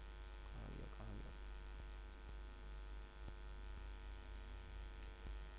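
Steady, faint low electrical mains hum with a quiet hiss, and a faint voice murmuring briefly about half a second in.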